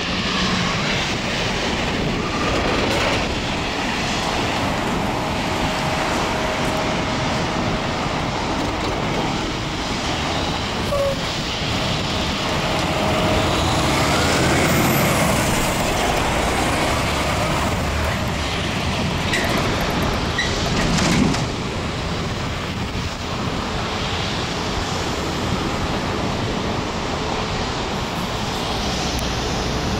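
Road traffic: cars and trucks driving through an intersection over steady road noise, with a louder vehicle passing a little past the middle.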